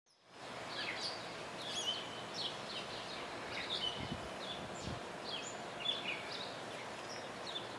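Small birds chirping and calling repeatedly in quick, short, high-pitched notes, some sliding in pitch, over a steady outdoor background hiss.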